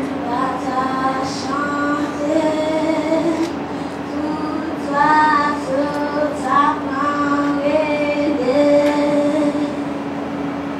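A girl singing a melody into a handheld microphone, holding some notes and gliding between others, over a steady low hum.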